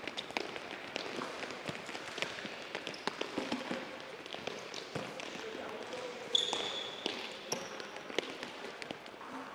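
Several soccer balls being dribbled on an indoor gym floor: many irregular taps and knocks of feet on balls and balls on the floor. Short high squeaks from shoes on the floor, the loudest a sharp squeak about six seconds in.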